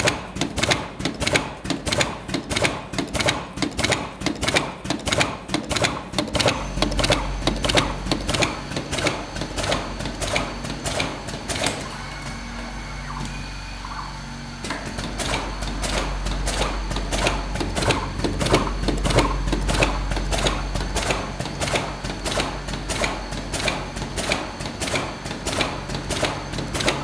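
Battery PCB soldering machine running, with fast, regular mechanical clicking. A steady low hum joins about six seconds in.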